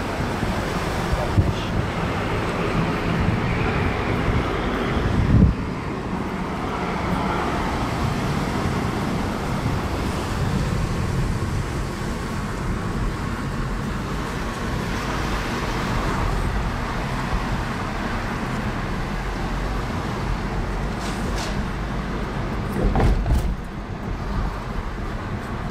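Steady vehicle and road noise, a low rumble, with a short louder thump about five seconds in and another louder bump near the end.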